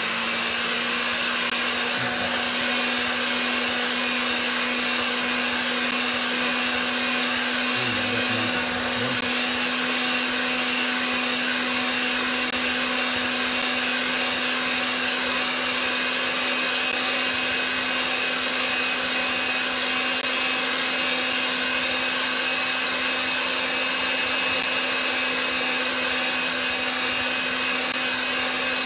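Electric hand mixer whipping heavy cream in a glass bowl, its motor running steadily at one speed with an even whine.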